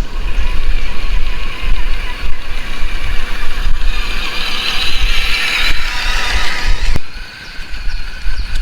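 A radio-controlled 4x4 crawler's electric motor and gears whining as it drives, over heavy wind rumble on the microphone. The whine swells about four seconds in and drops off shortly after.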